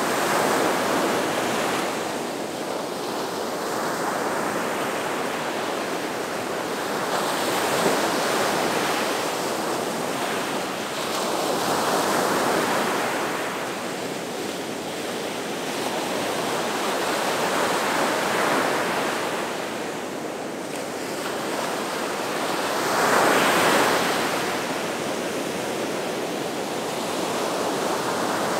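Gulf of Mexico surf: waves breaking and washing up the shore in a continuous wash that swells and eases every few seconds, the loudest break coming about 23 seconds in.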